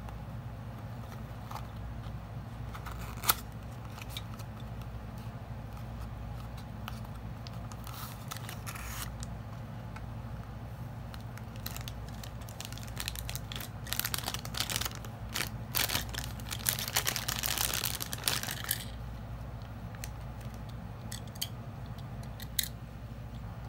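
Thin clear plastic bag crinkling and tearing as a small die-cast toy car is unwrapped from it, densest for several seconds in the second half. Before that come scattered light clicks of handling, with one sharp click about three seconds in, over a steady low hum.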